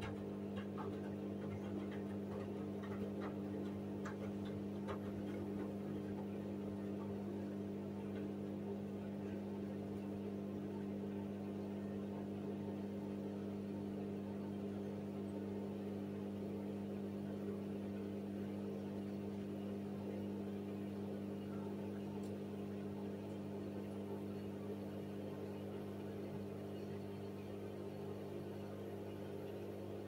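Hoover front-loading washing machine running with a steady hum while water and laundry slosh in the drum, with a few faint ticks in the first few seconds.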